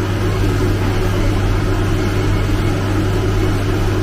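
CNC milling machine running steadily, its spindle turning a 100 mm face-mill cutter head, with a constant low hum.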